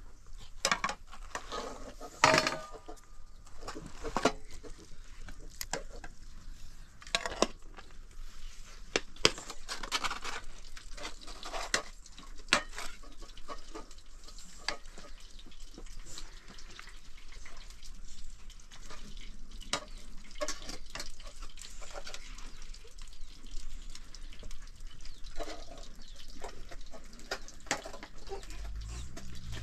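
Metal spoons and forks scraping and clinking against cooking pots and plates as fried fish and rice are dished out, in irregular clinks and scrapes.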